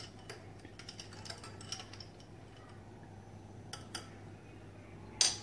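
Metal spoon stirring a glass of iced lemonade, giving light, scattered clinks against the glass and ice, with a louder clink near the end.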